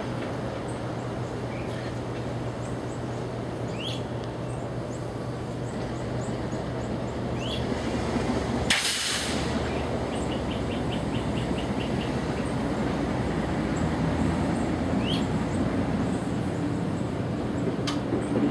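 Unseen diesel locomotive engine running with a steady low drone that gets louder from about six seconds in. A short, loud hiss about nine seconds in. A bird repeats a short rising chirp every few seconds.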